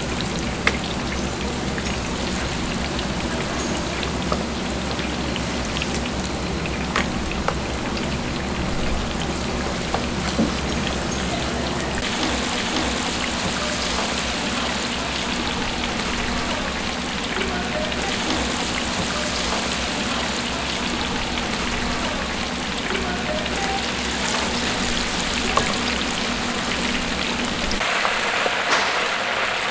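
Chicken deep-frying in hot oil: a dense, steady crackling sizzle with scattered pops. A low hum runs under it and stops near the end.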